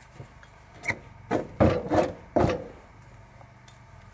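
Rusty nails being worked out of an old wooden floor joist with a hammer and crowbar: about five short knocks and scrapes of metal on wood in quick succession in the middle, then quiet handling.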